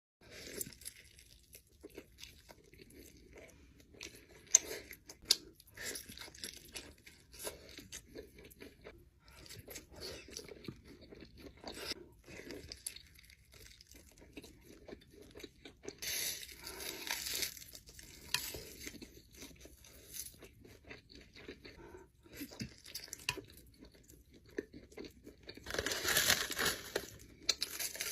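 Close-miked eating of crunchy food: a run of crisp bites and crackling chews, with two louder, longer crunches, one about two-thirds of the way through and one near the end.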